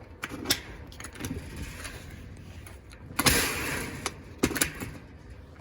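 A newly installed Schlage doorknob and deadbolt being tried out on a metal security door: a series of sharp latch and lock clicks, with one louder noisy mechanical sound lasting about half a second a little after the middle.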